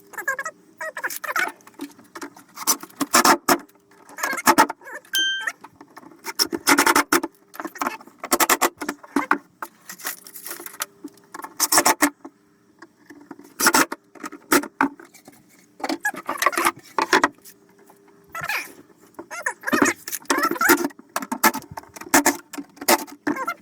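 Irregular knocks, clicks and rattling clatter from shelf pieces being handled and fitted together, in bunches with short pauses between, over a faint steady hum.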